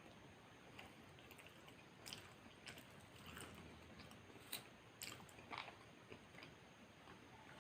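Faint close-up chewing and biting of a burger, with scattered small mouth clicks and crunches.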